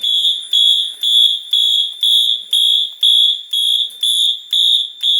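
Fire alarm horns on a Notifier AFP-200 panel sounding in alarm, coded to march time: a loud, high-pitched electronic tone pulsing on and off about twice a second.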